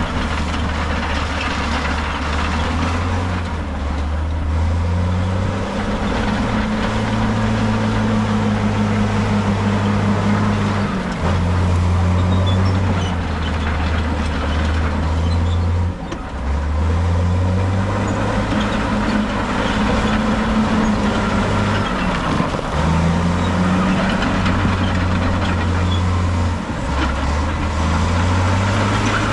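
Heavy diesel earthmoving machinery working, its engine revving up and bogging down under load in cycles of a few seconds, with a steady mechanical clatter behind it.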